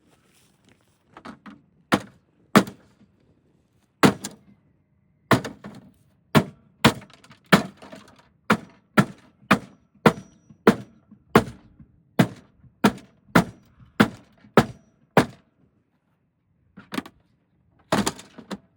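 Repeated hammer blows striking an old CRT television: a few scattered hits, then a steady run of about two blows a second for some ten seconds, a short pause, and two more hits near the end.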